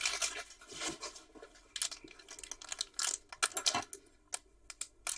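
Select Footy Stars trading cards being handled and flipped through by hand: a run of short, irregular papery slides and flicks, sparser near the end.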